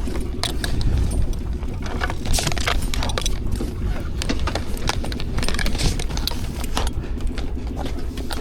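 Boat engine running steadily at low revs, a constant low rumble, with frequent irregular clicks and rattles over it.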